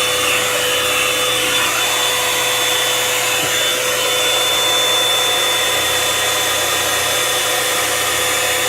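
Revlon One-Step hair dryer brush running steadily on its high setting, a rush of blown air with a constant motor whine.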